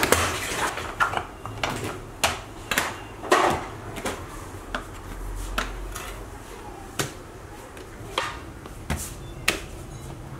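Scattered sharp knocks and clinks of hard objects being handled on a bakery worktable, a dozen or more at irregular intervals, while dough is portioned by hand.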